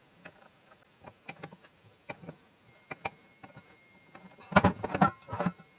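Small metal clicks and clinks of pump parts and tools being handled on a workbench. About four and a half seconds in comes a louder run of knocks and rattles as an adjustable spanner works on a fitting of the rebuilt pump body.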